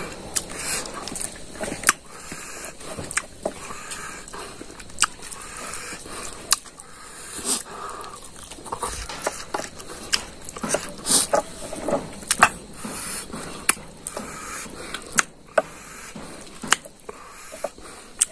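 A person eating rice and beef curry by hand: wet chewing and lip-smacking with many irregular sharp smacks, along with fingers scraping and squishing the food on the plate.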